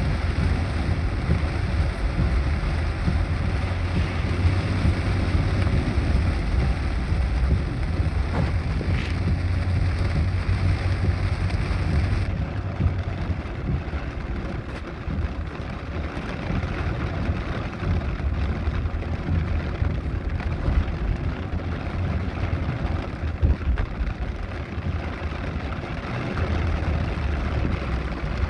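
Heavy rain falling steadily, with a low vehicle rumble underneath. The high hiss drops away about twelve seconds in.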